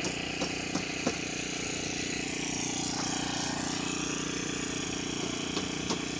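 An engine runs with a steady hum under a constant rush of wind noise, with a few light clicks and knocks scattered through.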